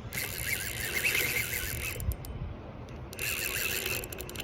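A fishing reel's drag ratcheting as a hooked carp pulls line off against it. It comes in two runs, with a lull about two seconds in.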